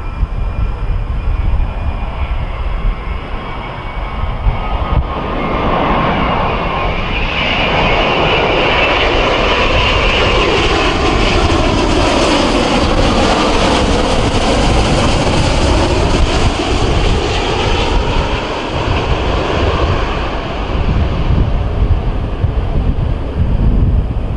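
Boeing 787 airliner passing low overhead on final approach: the jet engines' whine and rush swell from about five seconds in, are loudest in the middle with a swirling, sweeping change of pitch as it passes, and fade away near the end. Wind rumbles on the microphone throughout.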